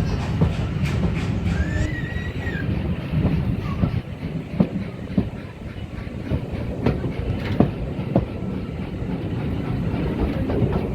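Steam-hauled passenger train running, heard from aboard: a steady low rumble with the wheels knocking over rail joints, the knocks spaced out from about four seconds in.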